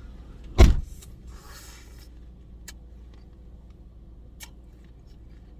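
A loud crunch about half a second in as a raw apple is bitten, then a second of crunchy chewing and a few faint clicks, over a steady low hum.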